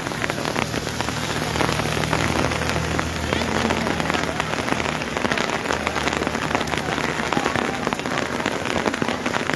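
Heavy rain pouring onto wet paved ground: a steady, even hiss dotted with countless separate drop hits.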